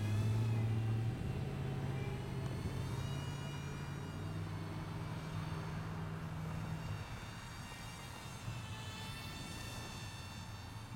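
Electric motor and propeller of a battery-powered RC flying Iron Man figure whining overhead, the pitch slowly drifting up and down. A louder low steady hum underneath stops about seven seconds in.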